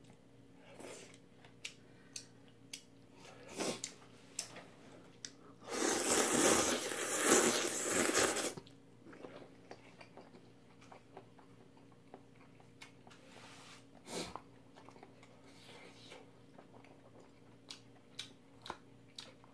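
A person eating jjamppong noodles: one long, loud slurp of noodles about six seconds in, lasting nearly three seconds, with chewing and small clicks of chopsticks around it.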